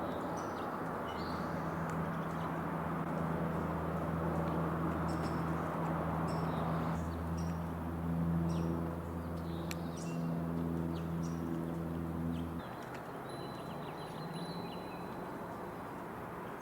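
Short, scattered high chirps of small wild birds over a steady low mechanical hum, which shifts in pitch about halfway through and drops away a little near the end.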